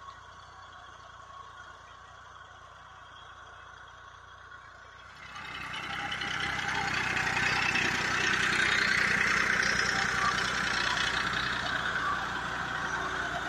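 New Holland 3230 TX Plus tractor's three-cylinder diesel engine running while it pulls a tined cultivator through the soil. It is faint at first and becomes much louder and steady about five seconds in.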